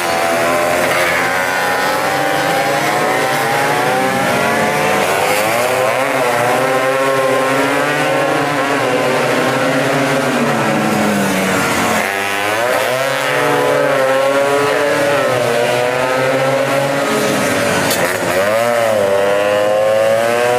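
Several tuned two-stroke scooter engines racing at high revs, their pitch rising and falling as the riders work the throttle. The sound changes abruptly about twelve seconds in and again near eighteen seconds, where one engine's pitch swoops up and down.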